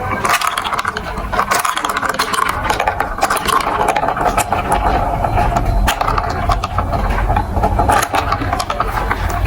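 Marbles rolling and clattering through a plastic marble-run track: a continuous rolling rumble with many quick clicks, the rumble growing heavier about halfway through.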